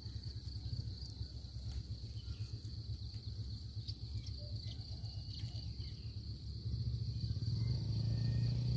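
Outdoor garden ambience: a steady high-pitched insect trill over a low rumble, which grows louder about seven seconds in.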